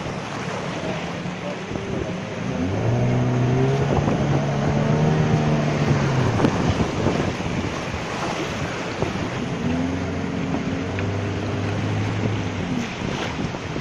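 Longboat running through river rapids: a steady rush of churning water and wind on the microphone. A low droning tone swells in twice, for a few seconds each, about three and ten seconds in.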